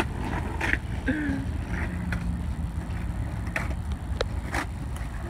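A vehicle engine idling, a low steady rumble, with scattered short clicks and taps over it.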